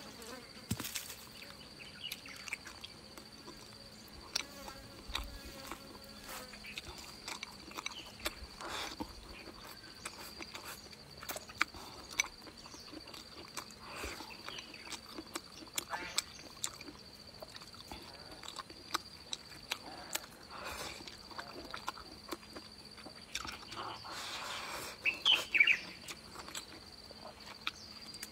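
Close-up eating sounds: irregular chewing, lip smacks and sucking on meat and bone, with a louder run of wet smacks near the end. Behind it, a steady high drone of insects.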